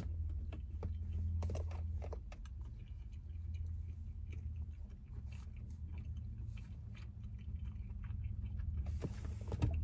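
Someone chewing a mouthful of breaded buffalo wing with the mouth closed, in soft irregular wet clicks and crunches, over a steady low hum.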